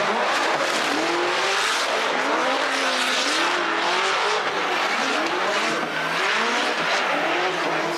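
Two drift cars in a tandem run: engines revving hard, their pitch rising and falling again and again, over a steady hiss of sliding tyres.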